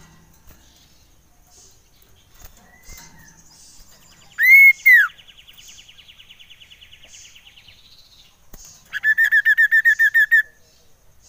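Common iora singing: two loud arched whistles, rising then falling, about four and a half seconds in, then a faint fast trill, and near the end a loud run of rapid repeated notes, about ten a second for a second and a half. Faint chirps repeat about once a second underneath.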